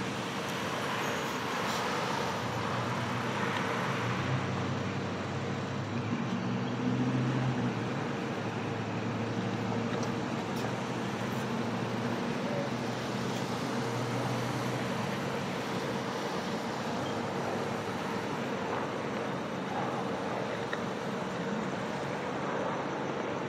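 Street traffic: cars idling and moving through a checkpoint lane, with one vehicle's low engine hum standing out from about four to fifteen seconds in.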